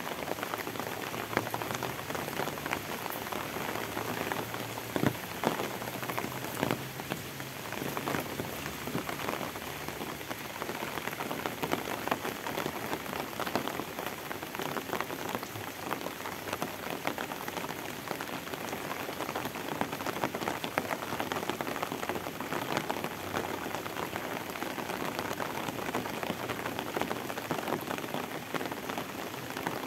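Steady rain falling on a wet paved lane and the roadside plants: an even hiss dotted with many small drop ticks.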